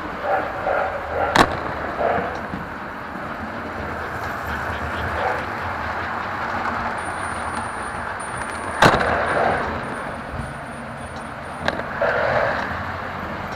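Toy electric trains running on the layout: a steady rattling whir of motors and wheels on the track, broken by three sharp clicks.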